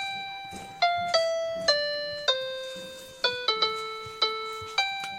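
Background music: a slow piano-like keyboard melody of single struck notes, each ringing and fading, stepping down in pitch and then back up.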